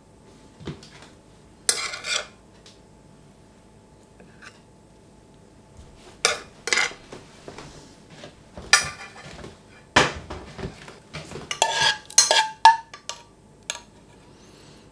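Metal spoon and cookware clinking and scraping against a ceramic plate, a skillet and a saucepan as food is plated: scattered clatter in several short clusters, with brief ringing clinks a little before the end.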